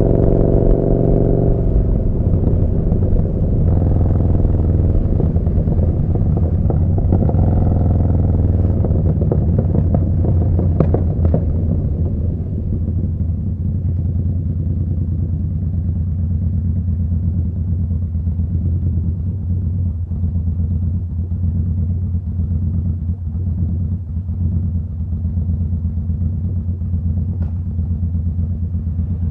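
Yamaha Bolt's air-cooled V-twin running through a Vance & Hines slip-on exhaust, heard from the rider's seat. The revs are higher at first and drop within the first couple of seconds. The engine then runs steadily at lower revs, a little quieter from about twelve seconds in.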